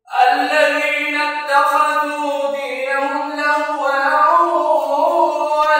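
A man chanting the Quran unaccompanied in melodic tajweed style. He starts right after a brief pause and draws the words out in long, slowly ornamented notes.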